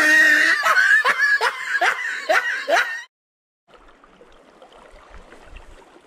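A man laughing in a quick run of breathy bursts, about two a second, cut off suddenly about three seconds in. After that, only a faint steady rush of river water.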